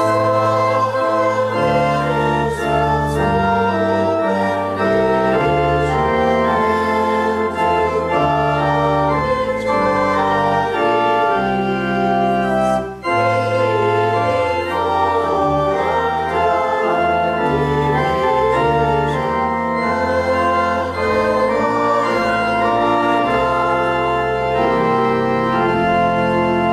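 Church organ playing a slow piece in sustained, changing chords, with a short break about 13 seconds in.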